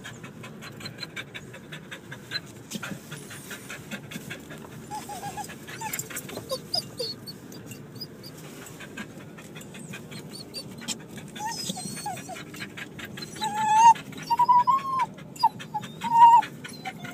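A dog panting rapidly, with several short high whines, the loudest about two-thirds of the way through and near the end.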